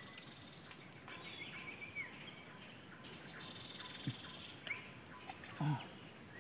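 Steady high-pitched insect drone with a few faint bird chirps over it.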